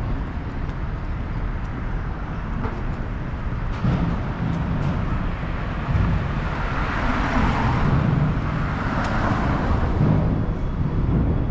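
City street traffic: a motor vehicle drives past, its noise building about four seconds in and easing off near the end.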